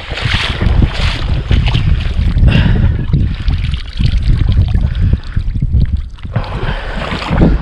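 Wind buffeting the microphone with a constant low rumble, over water splashing as someone wades through shallow water and lifts downed ducks out of it.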